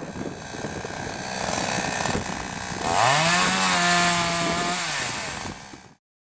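AMA BG38.14 37cc two-stroke petrol chainsaw running, then revved up sharply about three seconds in and held at high speed for about two seconds before easing off. The sound cuts off suddenly near the end.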